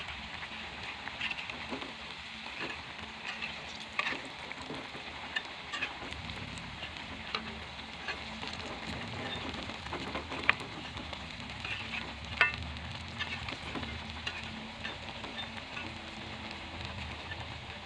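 Cassava pieces deep-frying in hot oil in a metal wok, a steady sizzle, with sharp clinks of a metal spatula against the pan as the pieces are turned; two of the knocks, past the middle, are louder.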